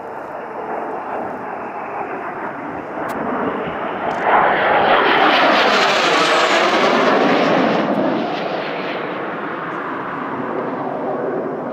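Jet aircraft flying past overhead: its engine noise rises sharply about four seconds in, peaks through the middle with a sweeping, shifting tone, then fades as the jet moves away.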